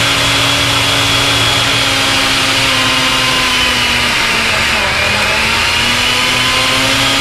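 Countertop blender motor running at full speed, pureeing peppers in hot sauce. Its pitch sags briefly about four seconds in as the load shifts, then picks back up.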